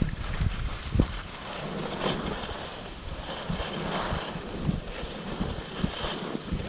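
Wind buffeting an action camera's microphone with irregular low thumps, over the steady hiss of skis sliding on groomed snow during a downhill run.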